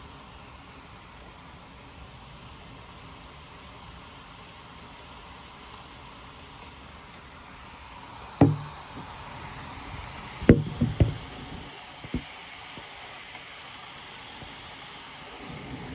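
Steady hiss of a heavy thunderstorm downpour, broken about halfway through by sharp knocks: one, then a quick run of three about two seconds later, then one more.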